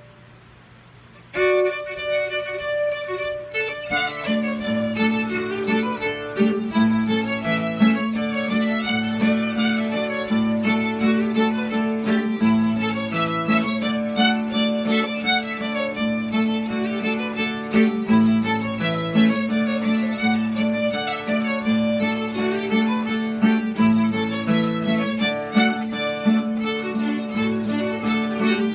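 Fiddle playing a polka tune with accompaniment, starting about a second in after a moment of quiet hum.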